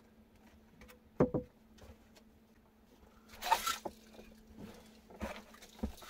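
A person handling things and moving about in a log dugout: two sharp knocks about a second in, a burst of rustling and crunching about halfway through, then a few light clicks and knocks near the end.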